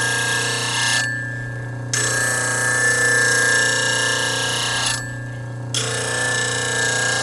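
A 1-inch skew chisel being ground on a Rikon bench grinder: the motor's steady hum under the hiss of steel on the spinning wheel. The grinding stops twice, each time for just under a second, as the tool is lifted off, giving three passes.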